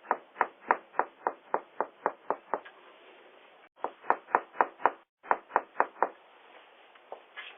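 Knuckles rapping on a front door, heard through a doorbell camera's microphone: three runs of quick, even knocks, about four a second. There are about ten knocks, then a short pause, five more, another pause, and four more.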